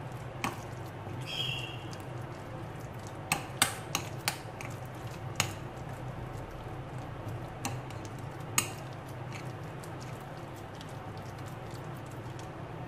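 A hand mixing and kneading minced chicken mixture in a glass bowl: soft squishing with a few sharp clicks against the glass, over a steady low hum.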